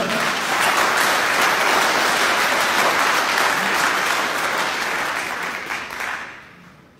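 An audience applauding: dense clapping that starts suddenly and fades away about six seconds in.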